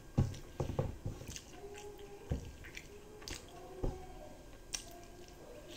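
Rice, fried egg and dal being squished and mixed by hand on a plate, with wet mouth sounds and a few soft knocks, most of them in the first second.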